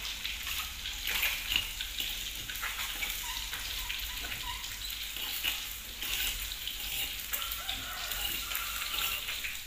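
Pan of hot liquid sizzling steadily as ground spice paste is scraped into it from a stone mortar, a metal spoon scratching and tapping on the stone.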